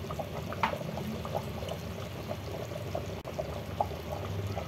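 Thick, flour-thickened mutton gravy simmering in a pot, with irregular soft plops and pops as bubbles break the surface, over a low steady hum.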